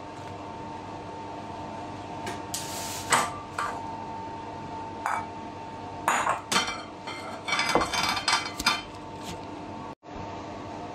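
Kitchen utensils and dishes clinking and knocking irregularly against a counter and cutting board during food preparation, over a steady hum.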